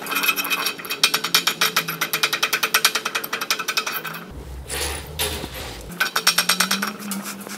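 Claw of a claw hammer rapidly picking and scraping slag off a fresh stick-weld bead on a steel plate: quick metallic taps, about seven a second, for roughly four seconds, a short pause, then a second, shorter run near the end.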